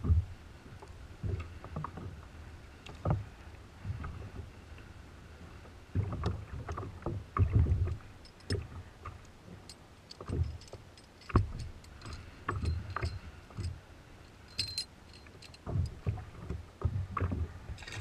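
An anchor and its rope being handled aboard a plastic sit-on-top kayak: irregular knocks and bumps against the hull with light clinking ticks, over water slapping. Right at the end comes a splash as the anchor is dropped into the sea.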